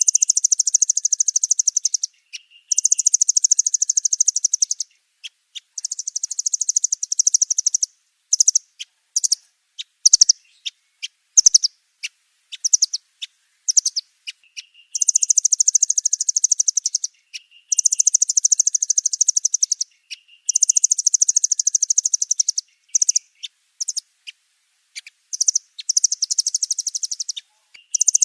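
Nuthatch calling: very high, rapid trills about two seconds long, repeated again and again with short gaps, with single sharp chips scattered between them. The trills are bunched near the start and again in the second half, with mostly separate chips in between.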